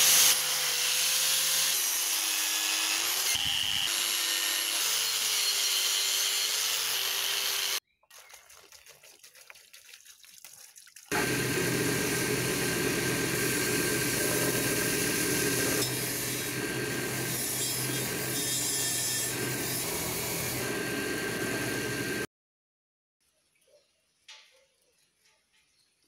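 Angle grinder with a wire brush scouring rust off cast-iron treadle sewing machine parts, its motor pitch wandering as it is pressed into the work. After a brief lull, a second power tool spins a wheel against the cast-iron Singer treadle frame with a steady whine, then it stops and only a few faint taps follow near the end.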